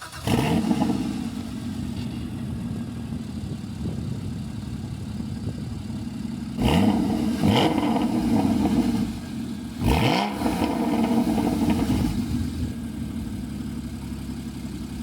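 Porsche 981 Boxster Spyder's 3.8-litre flat-six just after start-up: it flares loud right at the start, settles into a steady idle, then is revved in short throttle blips, two close together about seven seconds in and one more about ten seconds in, each rising and falling back to idle.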